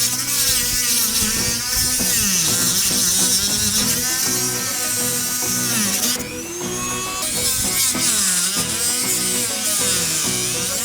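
High-speed rotary tool (Dremel) cutting into LEGO plastic, its whine dipping in pitch as it bites and rising again as it frees, over background music.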